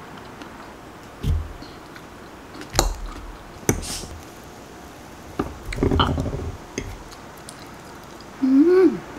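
Eating and table-handling sounds: a metal fork clicks against a glass container a few times and knocks as it cuts into a soft cake, with dull bumps in between. Near the end comes a short hummed "mm" that rises and then falls in pitch.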